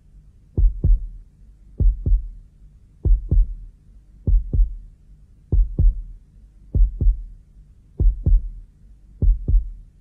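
Heartbeat sound effect: a slow, steady double thump (lub-dub) repeating about every 1.2 seconds, eight beats in all.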